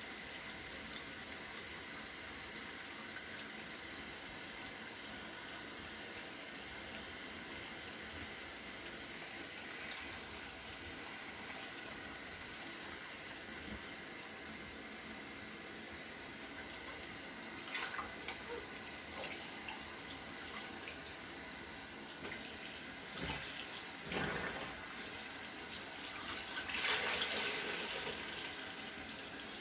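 Water running steadily from a tap into a sink. Over the last third come a few short, louder sounds and a longer louder stretch near the end.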